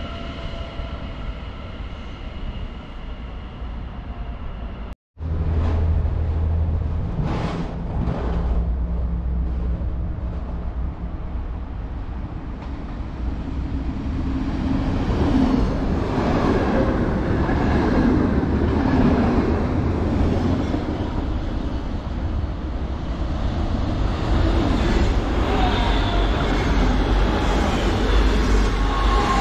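An electric train's steady whine with several tones, which cuts off abruptly about five seconds in. Then an NS yellow double-decker electric train approaches and runs past close by along the platform, its wheels and running gear rumbling, growing loud from about fifteen seconds in.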